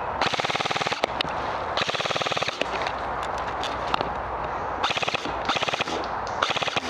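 Airsoft electric guns firing full-auto: several bursts of fast, evenly spaced shots, the two longest in the first three seconds and three shorter ones near the end.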